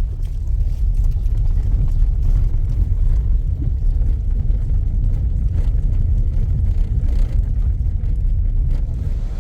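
Loud, steady low rumble that cuts off suddenly at the end.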